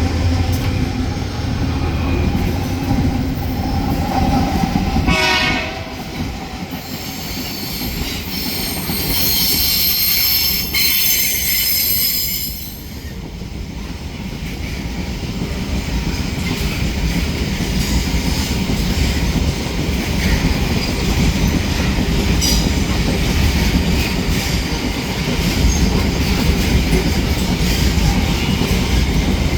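Long freight train rolling past at close range, its wagons rumbling and clattering over the rails. About a quarter of the way in, the wheels give a shrill, high-pitched squeal for several seconds.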